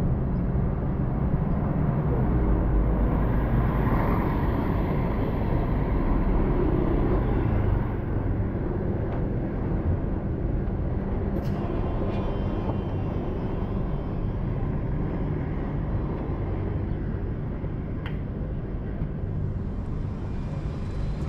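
City street traffic: buses and cars passing with a steady rumble, loudest for the first several seconds while a trolleybus moves alongside, then a little quieter.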